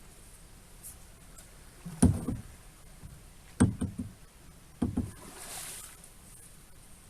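Knocks against the hull of a small boat as it is moved across the water, four of them in about three seconds, followed by a brief wash of water.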